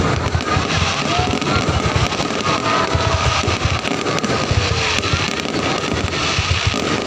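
Fireworks going off in rapid, unbroken succession: dense low booms and crackles, with music playing alongside.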